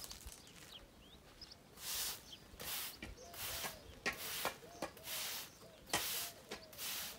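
Broom sweeping bare dirt and gravel: brisk, regular scraping strokes about every two-thirds of a second, starting about two seconds in. Faint short chirps sound between the strokes.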